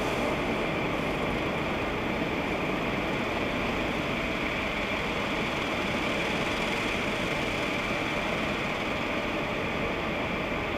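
High-pressure water jets of a WashTec Mark VII touchless car wash gantry spraying onto the car, heard from inside the cabin as a steady rush of water hitting the glass and body.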